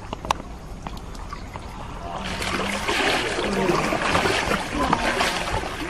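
Shallow river water splashing and sloshing, coming in about two seconds in and getting louder, as a large crocodile slides off a mud bank into the river. A sharp click just after the start.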